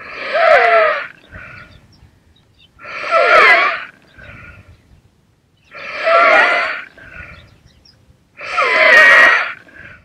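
Inspiratory stridor heard without a stethoscope: four loud, harsh, high-pitched breaths in, each about a second long and about three seconds apart, with quieter breaths out between them. It is the sign of a narrowed, obstructed airway.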